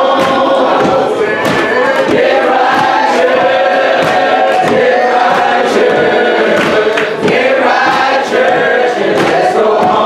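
A church congregation singing a gospel song together, many voices holding long notes, with sharp percussive hits about every second.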